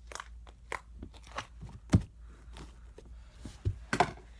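Cloud slime being stretched and squished by hand, giving off irregular sticky crackles and pops, with one sharper snap about two seconds in.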